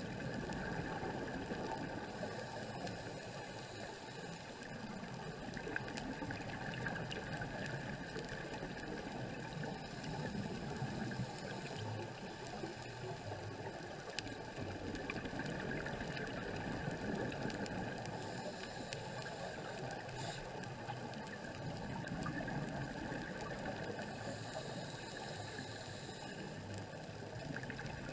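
Muffled underwater rush heard through a dive camera's housing, with a diver's regulator exhaling bursts of bubbles as a brief hiss twice in the later part.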